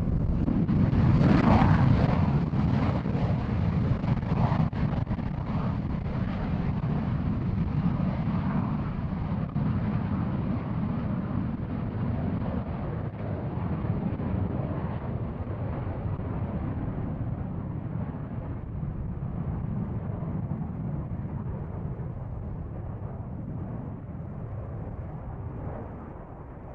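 F-16 fighter jets' single turbofan engines on take-off: a loud, continuous jet rumble that peaks about two seconds in, then slowly fades as the jets climb away.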